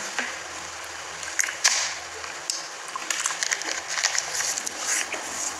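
Scattered light rustles and clicks over a faint steady low hum.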